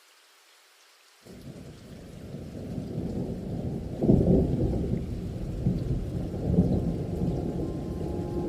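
Thunderstorm: a deep rolling thunder rumble over heavy rain, starting suddenly about a second in, building, and loudest about four seconds in.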